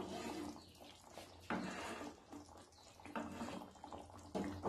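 Wooden spatula stirring thin curry gravy in a kadai: soft liquid sloshing and scraping, about four strokes.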